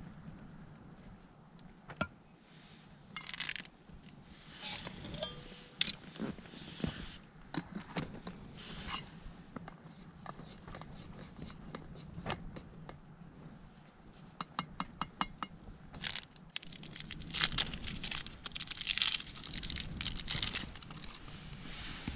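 Rustling and crinkling of things being handled close by, broken by scattered sharp clicks and knocks. There is a quick run of about eight even clicks around the middle and longer rustling near the end. A single sharp knock about six seconds in is the loudest sound.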